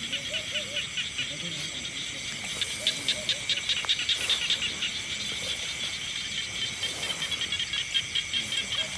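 Night chorus of insects and frogs calling from the rice paddy: a steady high trill with a rapid pulsing call, about ten pulses a second, that swells from a couple of seconds in and eases off near the end.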